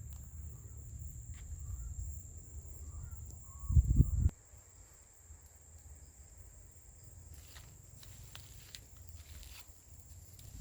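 Insects trilling steadily at a high pitch over a low rumble; about four seconds in there is a brief loud thump, and then the rumble drops away, leaving the insect trill and a few faint clicks.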